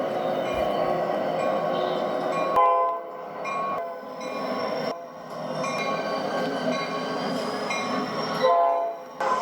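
A passing train, wheels and rumble, sounding its air horn in short loud chord blasts, one about a quarter of the way in and another near the end. The sound breaks off abruptly several times between separate recordings.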